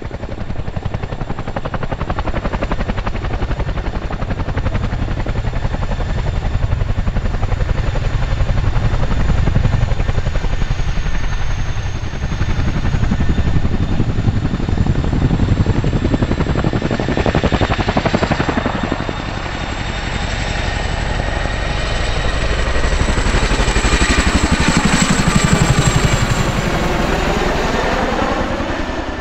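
Boeing Chinook tandem-rotor, twin-turbine helicopter at close range: fast, heavy beating of its two rotors with a steady high turbine whine, as it hovers low. It then climbs away overhead, growing louder near the end with its pitch sliding down as it passes over.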